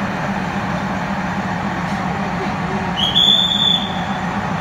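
Diesel locomotive engine of an arriving train running with a steady low drone. About three seconds in, a single shrill whistle sounds, rising briefly at the start and then held for about a second.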